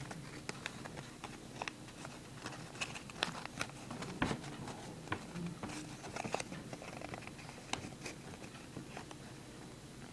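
Folded origami paper handled close to the microphone: irregular small crinkles, rustles and clicks as fingers work a flap into a pocket of the paper unit.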